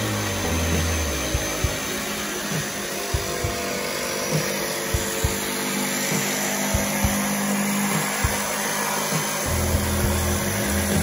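Corded jigsaw running steadily as its blade cuts through a sheet of Formica solid surface material, with background music underneath.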